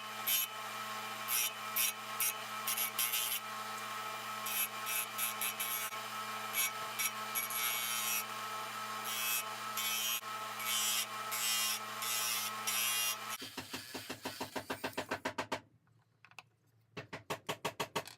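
A power sanding tool runs steadily with a hum while wood is pressed against it in intermittent bursts of grinding. About 13 seconds in the motor stops, and a quick, even scraping follows in two short runs.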